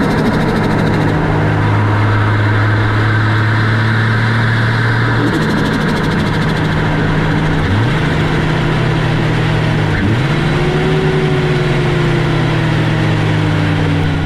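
Turbocharged car engine running through a 3-inch stainless steel turbo intake pipe, a steady engine note whose pitch dips sharply and climbs back twice, around eight and ten seconds in.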